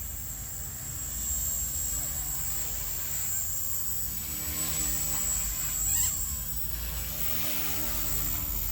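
Blade 150S RC helicopter in flight: its electric motors and spinning rotors give a steady high-pitched whine, swelling briefly and shifting in pitch about six seconds in.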